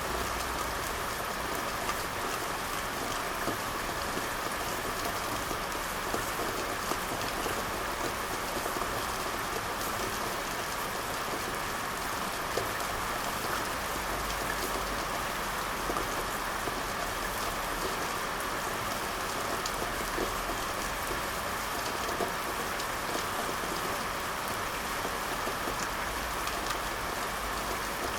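Steady gentle rain falling, an even hiss with scattered faint ticks of single drops or pops.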